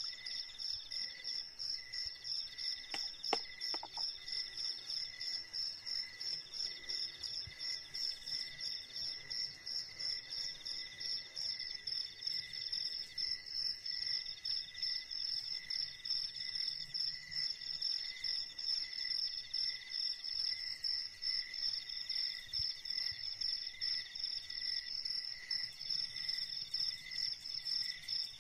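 Chorus of insects chirring steadily: several pulsed high-pitched trills at different pitches, one pulsing about twice a second, another coming in phrases a few seconds long with short breaks. A couple of light clicks about three seconds in.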